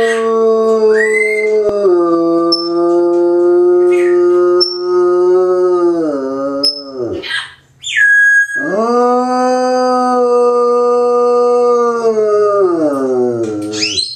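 Bloodhound howling: two long, drawn-out howls, each held on a steady pitch and sliding down at the end, with a short high whine between them about eight seconds in.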